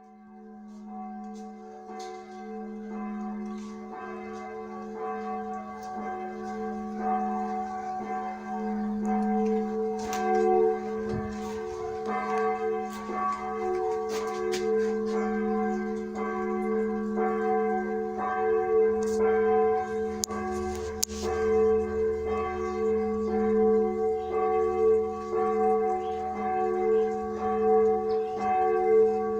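A large church bell ringing, struck over and over so that its deep hum and higher partials ring on continuously. The sound swells up over the first few seconds.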